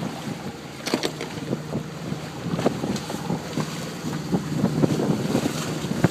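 Wind buffeting the microphone aboard a trimaran, with scattered sharp knocks and taps, about a second in, near the middle and near the end.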